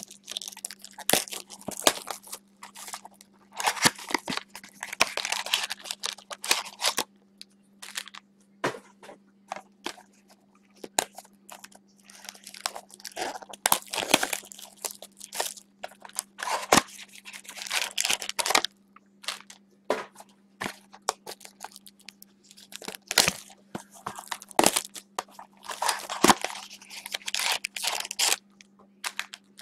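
Gloved hands handling thick trading cards and plastic: irregular rustling and crinkling with sharp clicks and taps as the cards are flipped and sorted. A faint steady low hum runs underneath.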